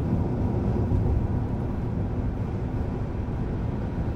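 In-cabin sound of a turbocharged Ford Barra straight-six car cruising at about 100 km/h: a steady low hum and rumble of engine and road. Its 4-inch exhaust has the VAREX muffler valve closed, so there is no exhaust drone, just the quiet cruise.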